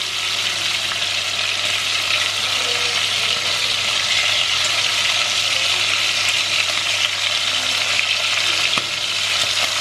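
Chicken pieces searing in hot oil in a cast iron pot, sizzling steadily as they are turned over with tongs. One light click near the end.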